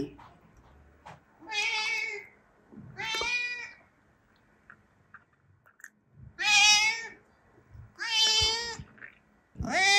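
A cat meowing five times in a row, each meow short and arching up then down in pitch.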